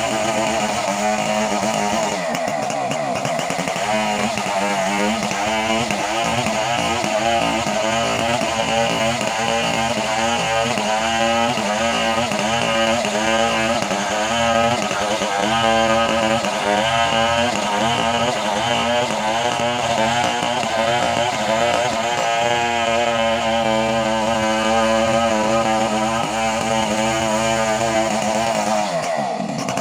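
Chainsaw engine running steadily at speed, its pitch dipping briefly and picking back up near the end.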